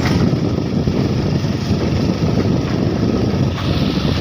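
Steady rumble of a vehicle travelling over a rough, muddy dirt road, with wind buffeting the microphone.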